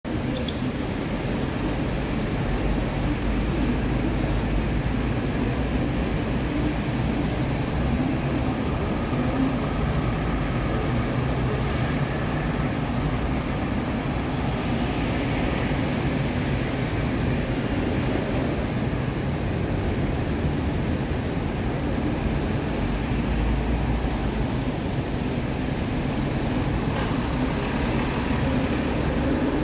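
Steady city road traffic: buses, cars and trucks running on a busy multi-lane street, an even, unbroken din.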